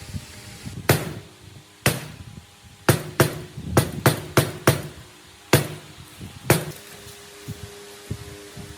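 About ten sharp hammer blows at an uneven pace, with a quick run of four strikes in the middle.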